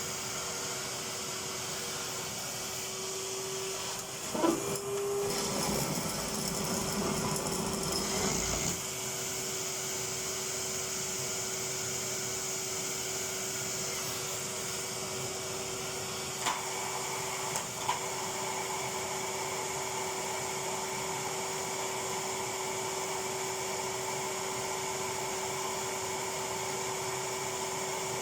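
Vacuum cleaner running steadily with a constant motor whine. From about four to nine seconds a rougher, lower rush comes in as the nozzle works over something, and near the end there are two short knocks.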